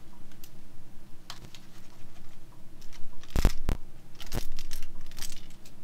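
Hard plastic knocks and scraping as the Dell Inspiron N7110 laptop's plastic base is handled on a desk: scattered clicks, two sharp knocks about three and a half seconds in, and a short clatter just after.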